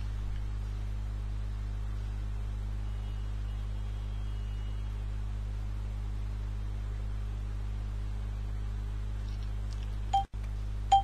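Steady low electrical hum. Near the end, short pitched beeps begin about a second apart, the pulse beeps of the oximeter software, one per heartbeat.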